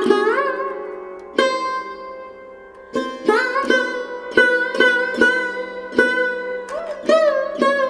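Indian instrumental music on a sitar-like plucked string instrument: single plucked notes that bend in pitch, over a ringing drone. The notes come slowly at first, then quicken after about three seconds.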